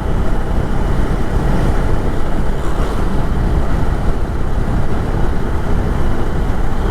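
Steady wind rush and road noise on a helmet-mounted microphone while riding a motorcycle at speed, with the bike's engine buried in the rush.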